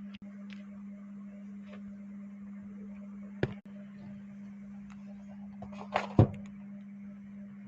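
A steady low hum, with a sharp click about three and a half seconds in and two louder knocks around six seconds in.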